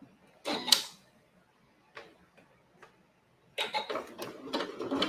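Domestic sewing machine: a sharp clunk about half a second in as the presser foot is lowered onto layered leather, a couple of faint ticks, then near the end the machine starts stitching a zigzag in short stuttering bursts of needle clatter.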